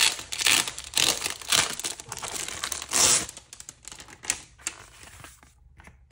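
Packaging wrapping crinkling and tearing as it is pulled off a desk calendar, in dense rustling bursts with a loud rip about three seconds in, then dying down to a few light rustles.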